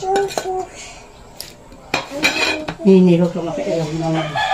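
A metal ladle clinking and scraping against a stainless steel bowl and plate as cooked pork pieces are served, several sharp clinks with brief ringing from the metal.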